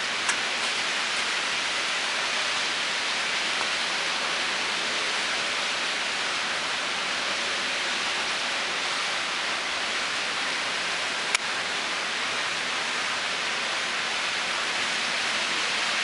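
Steady, even rushing hiss that does not change, with a short click just after the start and a sharper click about eleven seconds in.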